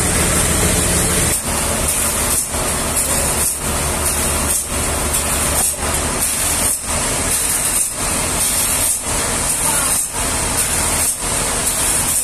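Sawmill machinery running with a loud, steady noise that dips briefly at an even beat of about once a second.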